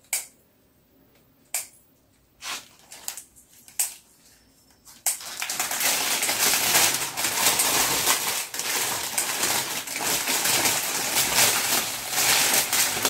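A few scattered light clicks, then from about five seconds in a loud, continuous crackle of a plastic sleeve being crumpled and pulled off a bundle of baby's breath (gypsophila).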